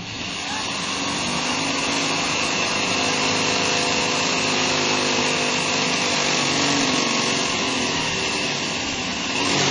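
Handheld electric drill running steadily under load as its bit drills into the metal side frame of an LED sign box, a high even whine with metal grinding noise.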